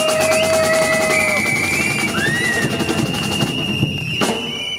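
Rally crowd answering with noisemakers: several steady held horn and whistle notes over a fast, even rattling drum, with one sharp bang a little after four seconds in.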